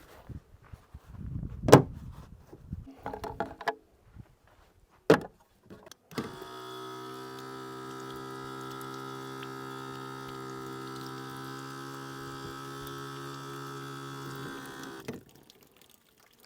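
A couple of sharp knocks and some clatter, then the small electric water pump of a DIY camp sink faucet runs with a steady hum for about nine seconds and cuts off suddenly.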